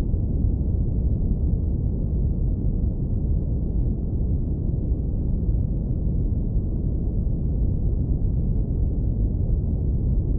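Steady brown noise filtered down to its lowest range: a warm, deep, even rumble with no high sounds and no changes.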